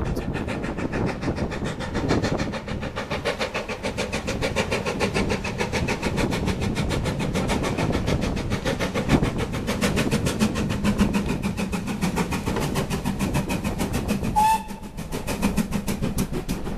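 Steam locomotive running in, with a steady rapid beat of about five strokes a second. A short whistle toot sounds near the end.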